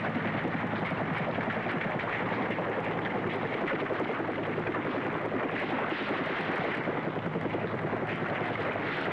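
UH-1 Huey helicopter running close by, its turbine and rotor a steady, loud wash of noise with a fast, even flutter from the blades.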